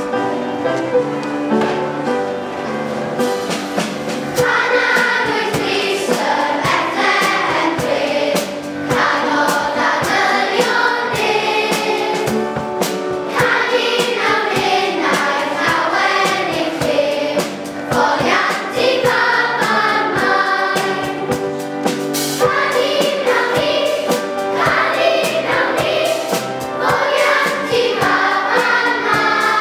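A choir of children singing a song over instrumental accompaniment, the voices coming in about four seconds in over held chords.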